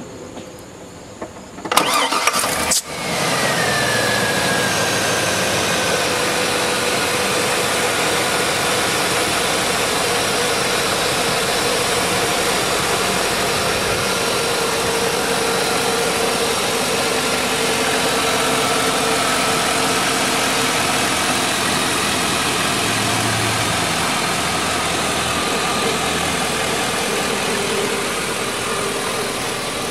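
Chevy Silverado's Vortec V8 started: the starter cranks briefly about two seconds in, the engine catches, then it idles steadily, heard close from the open engine bay. A whine falls in pitch over the first few seconds as the idle settles.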